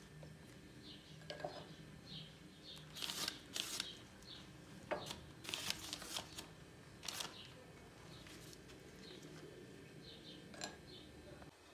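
Spoon spreading tomato sauce over a sheet of puff pastry on parchment paper: soft, scattered scrapes and paper rustles, quiet throughout.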